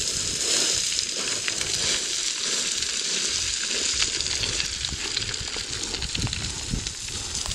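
Footsteps crunching and sliding down loose scree, a continuous crackling hiss of shifting stones with many small clicks.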